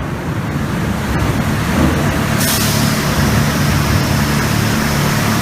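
Thunder rolling in a tropical storm, a continuous low rumble, with a hiss that turns louder about two and a half seconds in.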